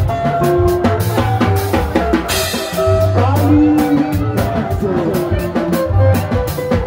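Live band playing: an electric guitar picks a run of single-note melody over a drum kit and bass guitar. No singing.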